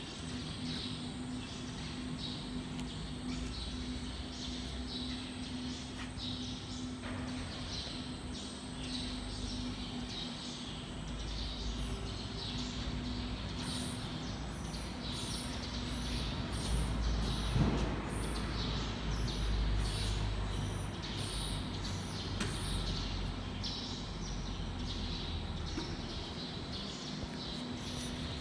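CNC wood router running: a steady machine hum with a low rumble that grows louder in the middle, and many short high chirps repeating over it.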